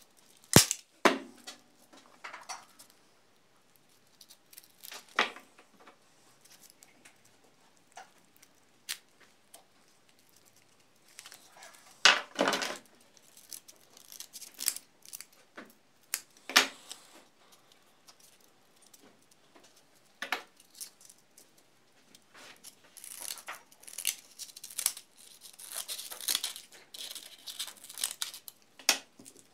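Scissors cutting the sandpaper sleeve wrapped around a plywood sanding drum: scattered snips and rustles of the abrasive sheet with a few sharp handling knocks, and a busier run of snipping near the end.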